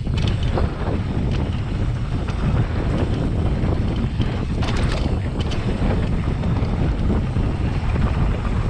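Wind buffeting the camera microphone of a mountain bike descending at speed, with a few short knocks and rattles from the bike over rough trail, the clearest about halfway through.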